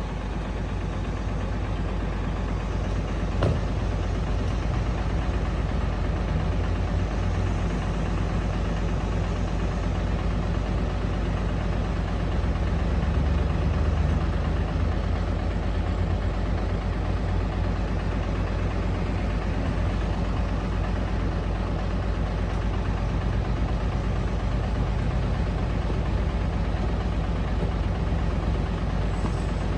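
Heavy diesel engine running steadily, with a single sharp click about three and a half seconds in.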